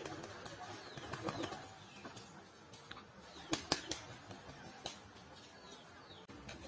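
Domestic pigeons flapping their wings in an aviary, with a few sharp wing claps about three and a half seconds in, the loudest moment.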